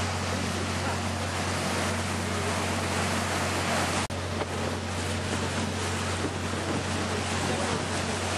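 Tour boat's engine running with a steady low drone under the rush of its wake and wind on the microphone. The sound cuts out for an instant about four seconds in.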